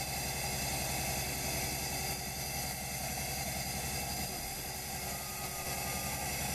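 Ultrasonic seamer running as its horn and carriage travel along overlapped carpet backing, welding the two layers by frictional heat: a steady machine hum with several steady high-pitched whine tones.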